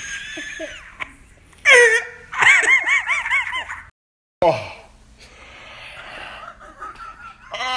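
A person laughing: a short laugh, then a run of quick high-pitched laughs about four a second that cuts off suddenly midway, followed by a brief falling vocal sound.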